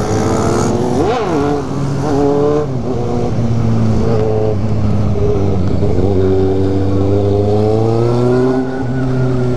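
Kawasaki Z750 inline-four through a 4-into-1 exhaust, accelerating through the gears. Engine pitch climbs in short pulls that drop back at each upshift, with a quick sharp blip about a second in. Near the end comes one longer climb that falls away.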